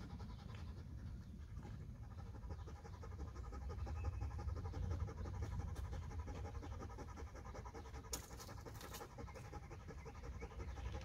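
A dog panting steadily in quick, even breaths.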